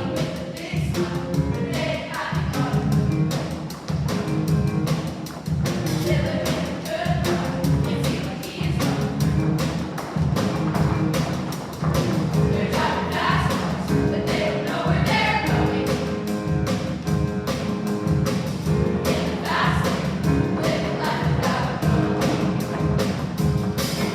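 Choir singing with instrumental accompaniment over a steady beat.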